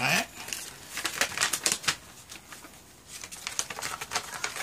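Paper rustling and crinkling as a leaflet is handled and unfolded, with scattered small clicks and taps in two clusters.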